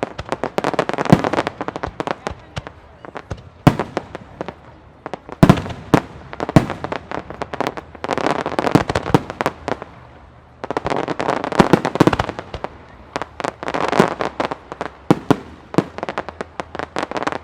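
Professional aerial fireworks shells bursting in a continuous barrage: repeated sharp bangs, with dense spells of rapid crackling every few seconds.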